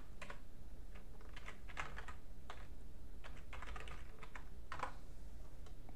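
Typing on a computer keyboard: a run of separate keystroke clicks at an uneven pace.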